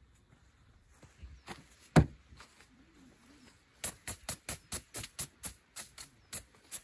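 A single sharp thump about two seconds in, then a small straw hand broom brushing over a folded tarp in quick, regular strokes, about four a second.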